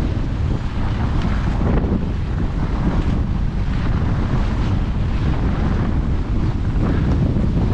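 Strong wind buffeting the microphone of a camera carried by a skier on the move, a dense steady rumble. Faint scrapes and clicks of skate skis and poles on packed snow show through now and then.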